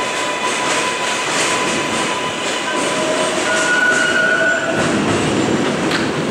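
Kawasaki R188 subway train pulling out of the station and running past: a steady rumble and clatter of wheels on the rails, with a thin whine in the first couple of seconds. A brief squeal of two high tones sounds about halfway through.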